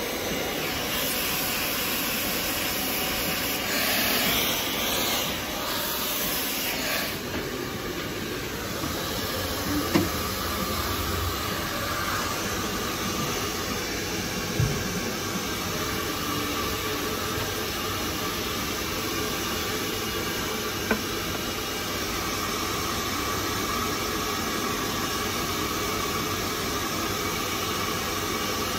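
Hair dryer blowing on wet hair, a steady loud hiss of air and motor, louder and hissier for a few seconds near the start as it comes closer. A few faint clicks are heard over it.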